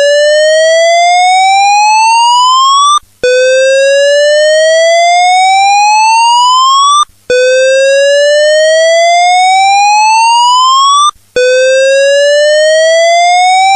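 Voice-evacuation fire alarm sounding its whoop tone: one loud tone rising steadily in pitch for about four seconds, breaking off for a moment and starting again low, repeating about every four seconds.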